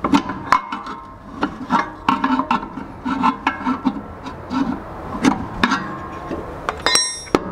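Repeated metallic knocks and clanks, some of them ringing, as a rear shock absorber is worked off its lower mounting pin on a Land Cruiser axle. A sharp, high-ringing clank comes near the end.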